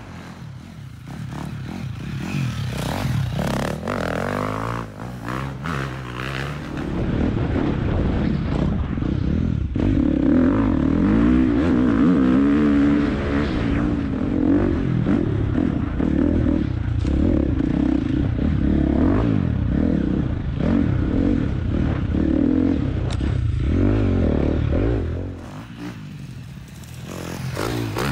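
Dirt bike ridden off-road, its engine revving up and down as the rider works the throttle. It grows louder a few seconds in and eases off near the end.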